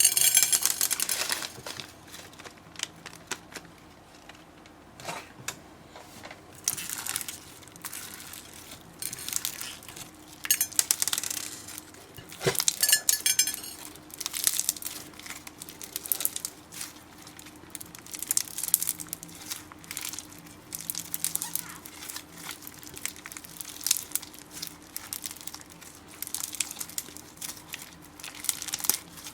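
Slime being squeezed, stretched and pressed by hand, making irregular crinkly, crackling squishes with occasional small clicks and pops.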